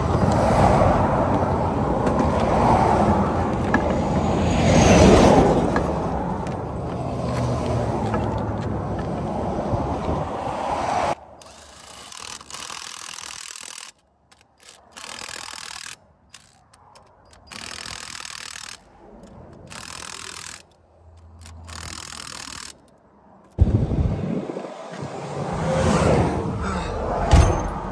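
Highway traffic rushing past the roadside, with one vehicle passing loudly about five seconds in. Then comes a series of short, separate bursts of a cordless impact driver working trailer-wheel lug nuts to change a blown tire. Near the end there is steady road noise inside a moving pickup's cab.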